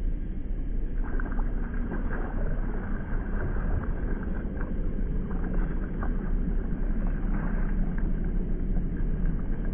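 Water splashing and churning against the side of a kayak, many small irregular splashes starting about a second in, over a steady low rumble.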